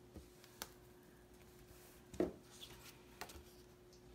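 Faint handling sounds of washi tape and a metal ruler on a planner page: a few light clicks and taps, the loudest about two seconds in, over a steady faint hum.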